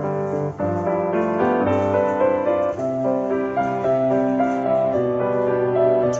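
Background piano music, a melody of changing notes.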